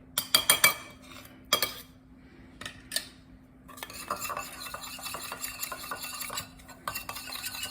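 A metal spoon clinks sharply against a dish a few times, then stirs briskly and steadily for about four seconds, scraping around the dish as tahini is mixed into chickpea marinade to make a sauce.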